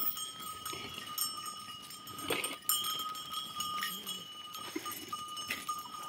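A herd of Honamlı goats milling and jostling in a pen, with hooves shuffling, scattered knocks and clanks, and bell clinks.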